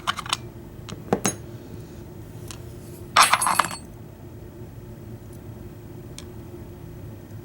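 Small metal padlock pins and springs clinking as they are handled and set down on a hard surface: a few light clicks in the first second and a louder rattling clink about three seconds in.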